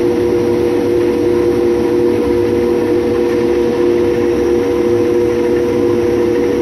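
Combine harvester running steadily while cutting wheat: a constant mechanical drone with two steady whining tones over a low rumble.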